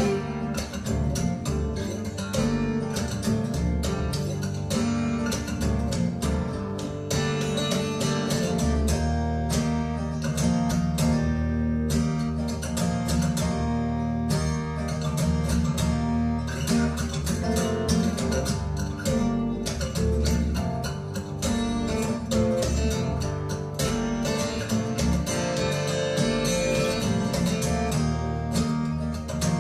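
Instrumental music with strummed acoustic guitar, played back through Triangle Borea BR03 BT powered speakers and picked up by microphones in the room.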